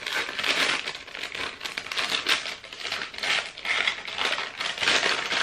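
Paper bag crinkling and rustling in irregular bursts as hands pull it open.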